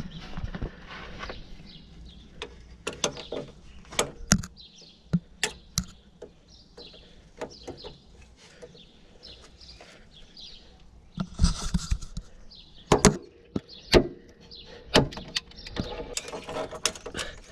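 Pliers working a metal clip off a steering rack gaiter: scattered, irregular metallic clicks and knocks, busiest a little past the middle, as the clip is gripped and worked loose.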